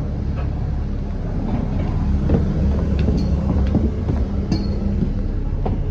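On board a Wrightbus Gemini 2 Volvo double-decker bus: a steady low engine and road rumble, with bodywork clicks and rattles and two short high squeaks about three and four and a half seconds in.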